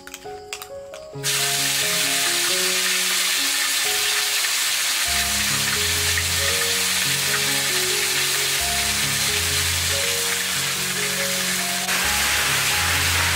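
Red curry paste dropped into hot oil in a large steel wok, sizzling loudly from about a second in and carrying on steadily, louder near the end as it is stirred with a ladle. Background music plays underneath.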